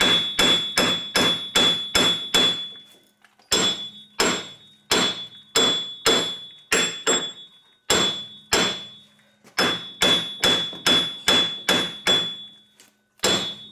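Heavy hand hammer striking a 2009 Chevrolet Equinox's front steering knuckle around the hub bearing, in fast runs of metallic blows, about three a second, with short pauses between runs. Each blow rings out briefly. The pounding is to break loose a hub bearing assembly held fast by corrosion in the aluminum knuckle.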